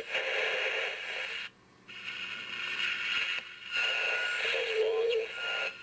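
Radio static and garbled snatches of broadcast sound, thin and tinny, broken by a few short gaps like a receiver jumping between stations.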